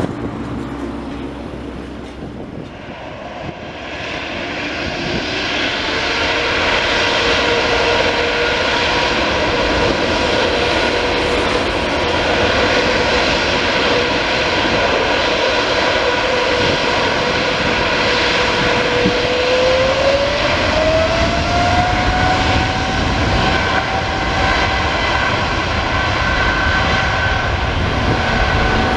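A Boeing 777-300ER's two GE90-115B turbofan engines spooling up for takeoff. A steady jet roar builds over the first few seconds, and about twenty seconds in a whine climbs in pitch, then holds as the engines reach takeoff power.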